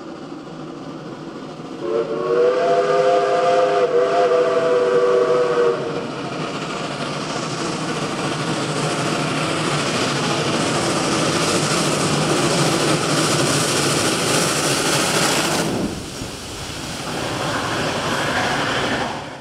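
Steam locomotive approaching under load. About two seconds in, its chime whistle sounds one long blast of several notes at once, lasting about four seconds, over a steady loud rush of exhaust and running noise. The sound changes abruptly near the end.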